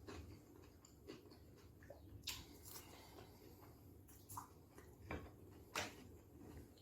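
Faint eating sounds up close: chewing on a stuffed cucumber boat, with a handful of short, sharp mouth clicks and crunches over a low room hum, the loudest about two, five and six seconds in.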